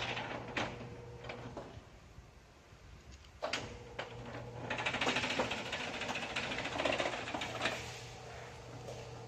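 Electric rolling-shutter motor humming while the garage shutter's slats clatter against each other. It goes quiet about two seconds in. A click about three and a half seconds in starts it again, and the slats rattle as they spread apart and the shutter begins to rise.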